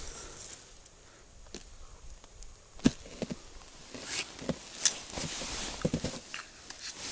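Scattered clicks, knocks and scrapes of an ice skimmer scooping slush and ice chips out of an ice-fishing hole, the sharpest knocks about three and five seconds in; near the end small handling sounds of a winter fishing rod.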